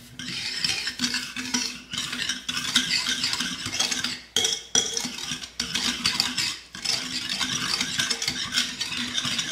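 Danish dough whisk beating eggs and sugar in a ceramic bowl, its wire head scraping and clinking against the bowl in quick, continuous strokes, with a few brief pauses.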